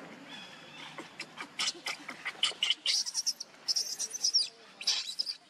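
Baby monkey crying in rapid, high-pitched squeaks and short squeals, coming thicker after about two and a half seconds.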